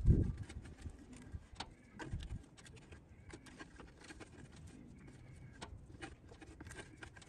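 Dry mouse-nest material rustling and crackling as it is pulled by hand out of a tractor's side compartment, with a low thump right at the start.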